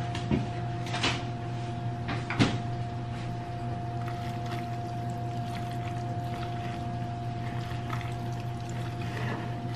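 A refrigerator door handled, with a few sharp knocks in the first few seconds, followed by soft handling sounds of hands mixing food in a bowl, all over a steady electrical hum.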